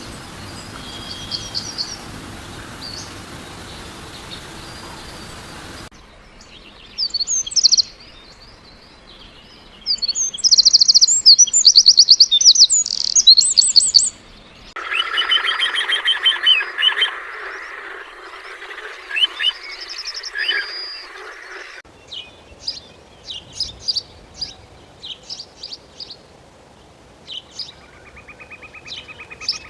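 Songbirds singing and chirping in several spliced recordings that switch abruptly every several seconds. The loudest stretch, about a third of the way in, is rapid high-pitched chirps and trills.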